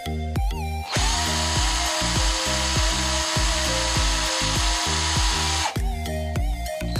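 Black & Decker cordless drill running steadily with a twist bit, from about a second in until it stops near the end, as the bit chamfers a hole in a small part held by hand. Background music with a steady beat plays throughout.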